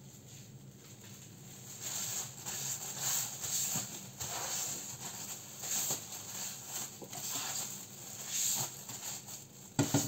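Plastic crinkling and rustling in irregular bursts as gloved hands handle a sushi roll on a cutting board, with a couple of sharp knocks near the end.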